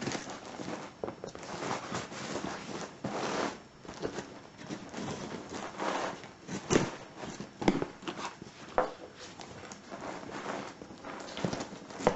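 Cardboard parcel being opened and handled by hand: irregular rustling of cardboard and packing, with scattered knocks and clicks.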